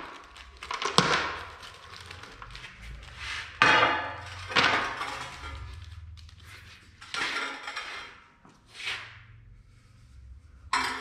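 Bolts, nuts and small steel hardware clinking and clattering onto a parts tray as they are tipped out of plastic bags, with plastic rustling, in several separate bursts.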